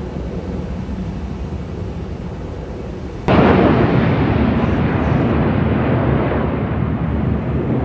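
Low rumble of distant jet aircraft with wind noise on the microphone. About three seconds in, it jumps abruptly to a much louder jet roar that slowly fades.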